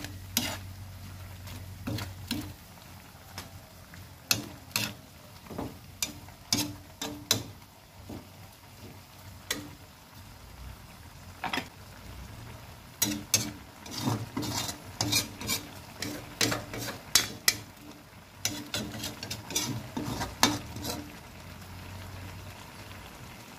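Metal spoon stirring squash and malunggay leaves in coconut milk in a metal pan, clinking and scraping against the pan at irregular intervals, with quicker runs of clinks in the second half. A low steady hum runs underneath.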